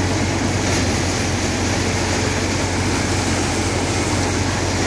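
A Kranti threshing machine running steadily as sheaves of crop are fed in and straw is blown out, a constant low hum under an even rushing noise.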